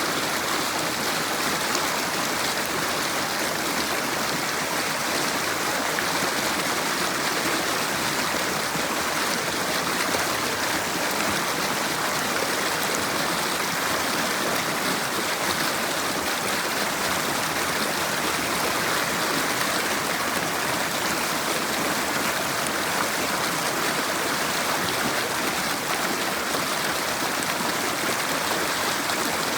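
River water flowing over stones: a steady, unbroken rushing.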